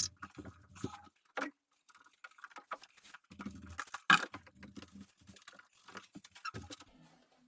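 Irregular light rubbing, taps and clicks of hand-cleaning a uPVC window's glass and frame, with one sharper click about four seconds in.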